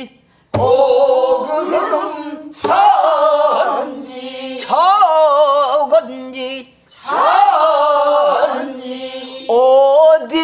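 A woman singing pansori solo, her pitch bending and wavering through long drawn-out phrases with a short breath between them. A low stroke on the buk barrel drum sounds about half a second in.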